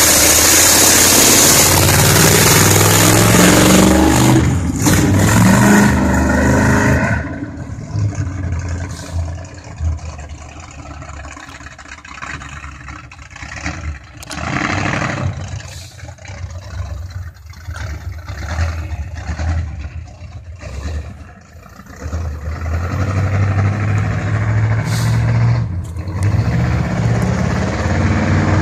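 1969 Camaro COPO's V8 engine revving hard as the car pulls away, its pitch rising for several seconds before the sound drops off sharply about seven seconds in. A deep engine rumble builds again near the end.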